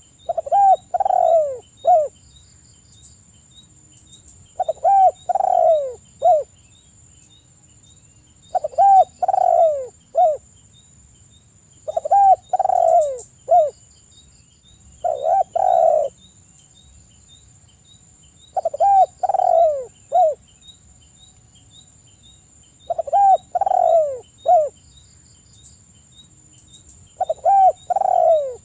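Spotted dove cooing: a short phrase of three or four falling notes, repeated about every four seconds, eight times over.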